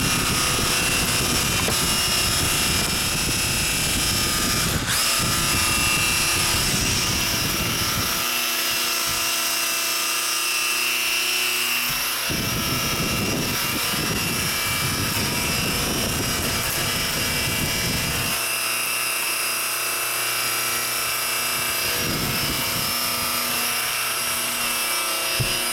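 Electric motor and propeller of a model Super Cub airplane running flat out with a steady high-pitched whine. The propeller blast buffets the microphone with a low rumble that comes and goes in long stretches.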